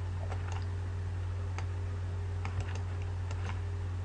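Scattered light clicks of a computer mouse and keyboard, about eight in all, over a steady low electrical hum.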